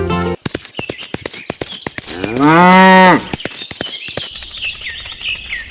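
A cow moos once: a single call of about a second, the loudest sound here. Birds chirp over a run of sharp clicks, and music cuts off just at the start.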